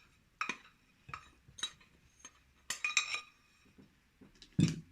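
Metal kitchenware clinking while flour is sifted into a bowl: a handful of sharp, irregular taps with a short ring, the loudest near the end.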